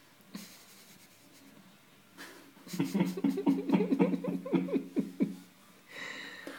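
A person laughing in a run of quick, chopped pulses, about six a second, for a couple of seconds in the middle, with a short breathy sound near the end.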